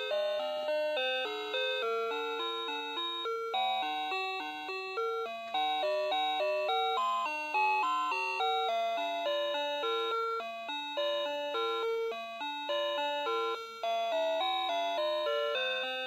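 Noah Seimitsu Fruity Melody alarm clock playing one of its built-in alarm melodies: a continuous tune of plain electronic tones, with two or more notes sounding together and the notes changing several times a second.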